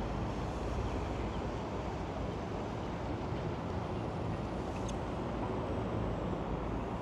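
Steady outdoor rumble and hiss, with wind buffeting the microphone.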